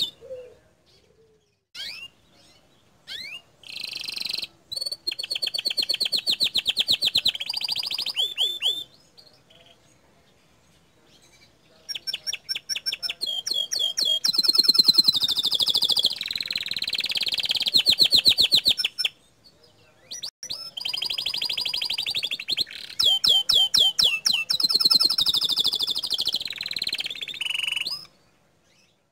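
Domestic canary singing: long phrases of fast repeated trills and rolling notes in three extended bursts, with a few short chirps before the first burst and pauses of two to three seconds between bursts.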